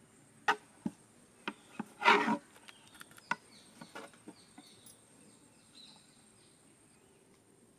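Kitchen knives cutting the crusts off bread slices on a wooden board and a steel plate: a handful of sharp knocks in the first few seconds, and a short, louder scrape just after two seconds in. Faint bird chirps repeat in the background in the middle of the stretch.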